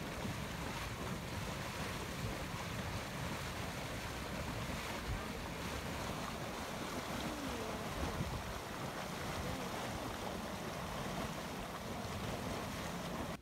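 Dragon's Mouth Spring, a hot spring churning and sloshing in its steaming cave mouth, with steam venting: a steady rushing noise with a few low thuds.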